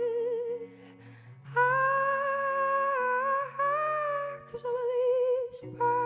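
Female voice singing long wordless held notes with vibrato over sustained electric guitar chords. There is a short break about a second in, a long higher note in the middle, and shorter notes near the end.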